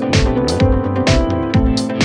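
Background electronic music with a steady beat, about two beats a second.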